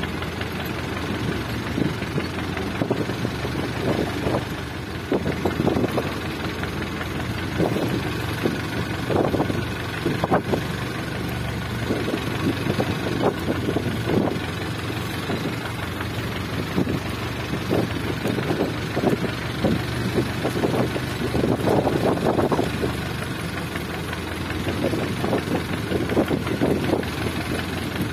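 Wooden fishing boat's engine running steadily while trolling, a constant low hum, with irregular louder whooshes of wind and water over it every second or two.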